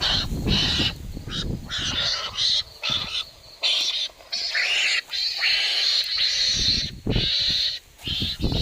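Shrill animal cries, repeated and broken by short gaps, over rustling and handling noise.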